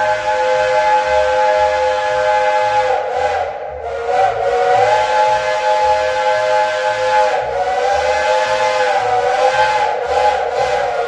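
Shay geared steam locomotive's chime whistle blowing a long sustained chord, its pitch wavering and bending twice before settling back to a steady chord.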